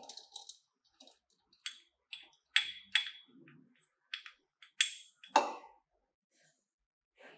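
A wooden spoon scraping and tapping cooked rice out of a small glass bowl into a clear plastic blender cup: a run of light, sharp clicks and taps, with a heavier knock about five seconds in.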